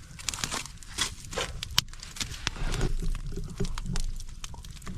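Wood campfire crackling, with irregular small clicks and a sharp pop just under two seconds in.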